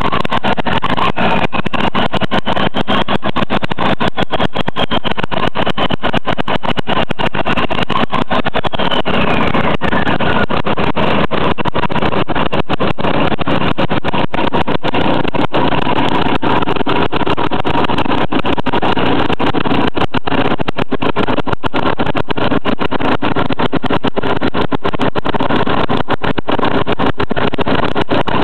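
A 1.6-litre Volkswagen inline-four turbo-diesel running steadily and loudly on a test stand just after starting. The engine has badly worn cylinder walls and is burning oil.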